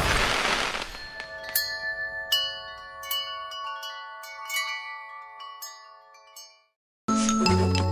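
A whoosh, then a shimmering cascade of tinkling chimes that ring on and fade away to silence: a festive Christmas chime sting. Cartoon music starts suddenly near the end.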